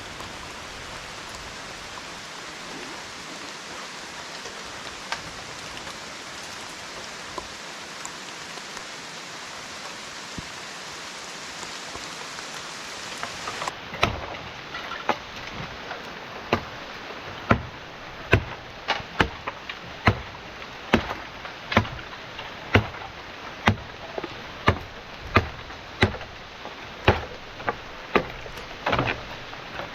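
Steady rain, a hiss of falling water. About halfway through it gives way to a run of sharp, regular knocks, one or two a second.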